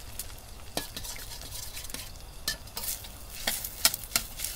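Eggs and sliced pork sausage frying in oil in a pan, with a steady sizzle while a utensil stirs and scrapes, knocking sharply against the pan about half a dozen times.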